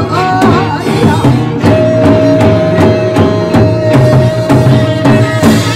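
A Korean traditional music ensemble playing, with drum strikes on a steady beat over a low, sustained bed of pitched sound. About two seconds in, a long high note starts and is held steady until near the end.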